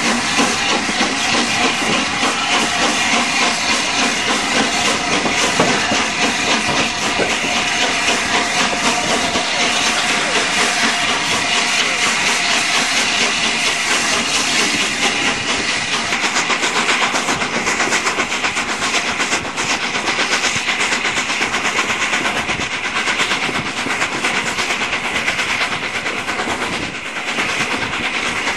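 Steam locomotive 60163 Tornado, a three-cylinder A1 Pacific, working a train with a steady rapid chuff of exhaust and hissing steam, heard from an open carriage window along with the carriages running on the rails.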